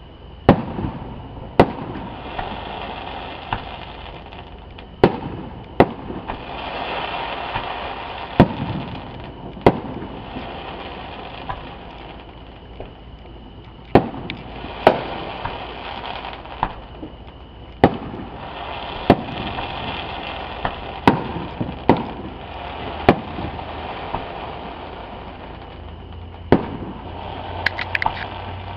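Aerial fireworks display: a long run of sharp bangs from shells bursting, irregularly spaced and sometimes in quick pairs, with stretches of crackling noise between the bangs.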